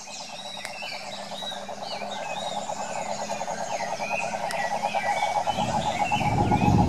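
Cane toad giving its long, steady, fast-pulsed trill, growing gradually louder, with birds chirping in the background. A low rumbling noise comes in near the end.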